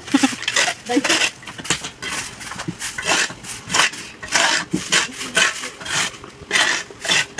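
Stick broom sweeping and a shovel scraping across soil and dry leaves: a run of irregular scratchy strokes, about one or two a second.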